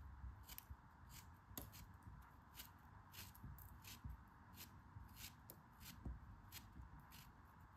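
Knife blade slicing through a lump of kinetic sand: a faint, crisp, grainy crunching, repeated about twice a second as the blade goes in.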